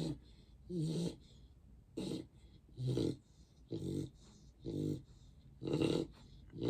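Young mixed-breed dog snoring in her sleep, a low rasping snore with each breath, about one a second.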